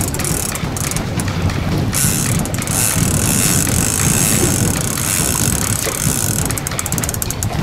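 Fishing reel drag buzzing in long stretches as a hooked sturgeon pulls line off against it, breaking into rapid clicks near the end. Wind on the microphone rumbles underneath.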